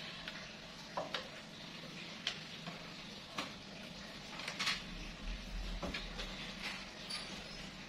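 Scattered knocks and clicks of someone climbing down a wooden step stool, with a low thud around five seconds in, over a steady hiss.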